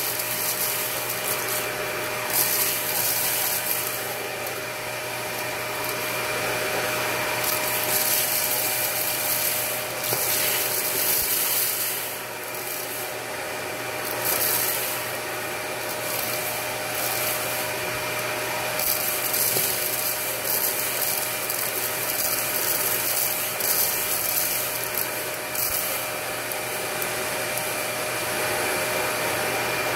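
Dyson Ball Multifloor vacuum cleaner running steadily through its bare hose wand, a constant motor tone under the airflow rush. Now and then there are brief bursts of hissing and rattling as rice, candy and rhinestones are sucked up the wand.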